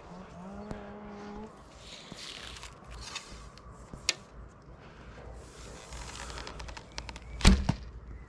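A cow lowing, one drawn-out call that ends about a second and a half in. Then footsteps and light handling noises, a sharp click about four seconds in, and one loud sharp thunk near the end.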